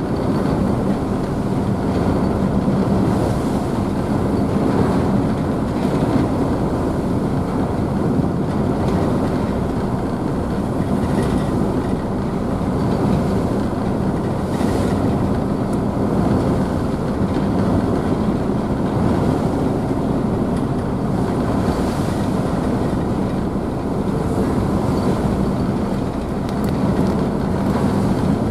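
A car ferry's engines running with a steady low drone under the rushing and splashing of its wake, heard from the rear deck.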